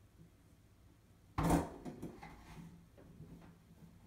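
A cat pawing at a door's mail slot: a sudden loud clatter of the slot and its plastic inner cover about a second and a half in, then a second of lighter rattling, and another sharp clatter at the very end.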